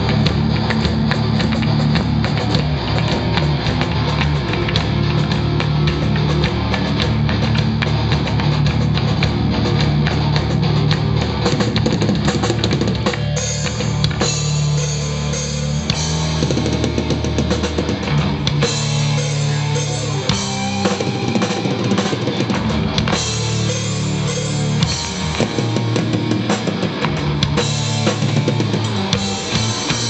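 Melodic death metal band playing live at full volume: fast, heavy drum kit with bass drum under distorted electric guitars.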